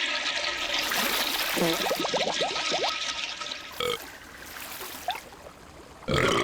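Cartoon water sound effects: water rushing and bubbling, with a quick run of short rising squeaks about two seconds in. It quietens after about four seconds, and a loud burp-like vocal noise starts just before the end.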